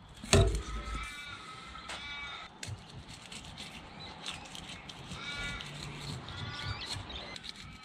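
A bird calling several times in short, drawn-out, wailing caws spaced a second or two apart, with a single loud thump about a third of a second in.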